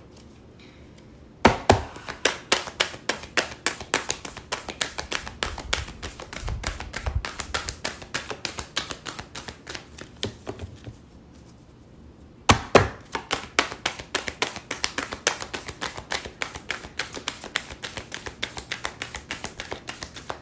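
A deck of tarot cards being shuffled by hand: a quick patter of card clicks, several a second, in two long runs with a short pause about halfway, each run opening with a sharper knock.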